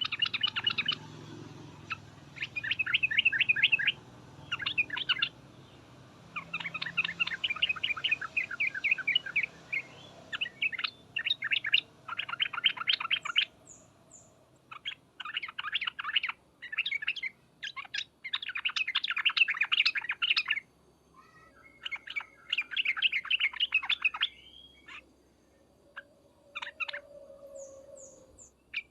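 Yellow-vented bulbul (trucukan) giving its fast chattering call: quick runs of short, sharp chirps in bursts of one to three seconds, with brief pauses between.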